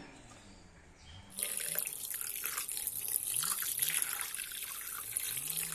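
Running water from a tap, splashing over raw chicken pieces as they are washed, starting about a second and a half in.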